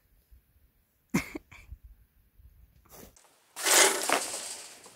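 A cord-pulled wire-mesh rabbit trap being sprung: a couple of sharp knocks about a second in, then about three and a half seconds in a loud rattling clatter that dies away over about a second.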